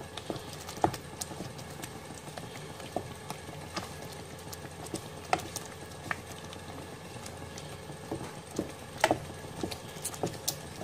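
Wooden spatula stirring thick spinach gravy in a pot, knocking and scraping against the pot's sides at irregular intervals, with the sharpest knocks about nine seconds in.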